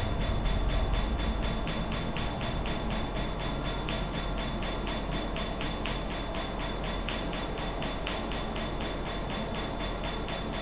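Tattoo-removal laser firing, each pulse a sharp snap, about five a second in an even rhythm, over a steady background hum.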